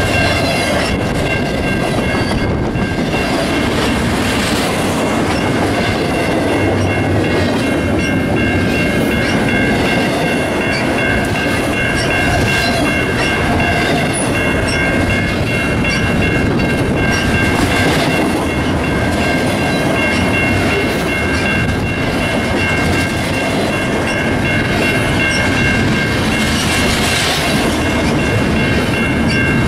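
A freight train rolling past close by, its cars clattering over the rail joints in a steady, loud rumble, with a steady high ringing tone over it.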